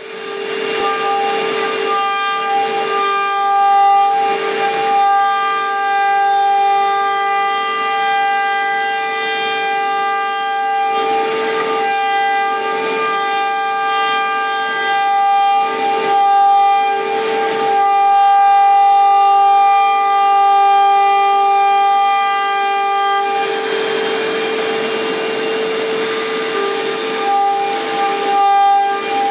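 Multicam SR2412vi CNC router's spindle running with a steady high-pitched whine as the bit cuts through a sheet on the table, with several stretches of louder, rougher hissing cutting noise, the longest near the end.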